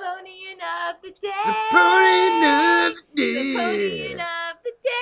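A voice singing unaccompanied in a high register, in a few phrases with long held notes and gliding pitch, separated by short breaks.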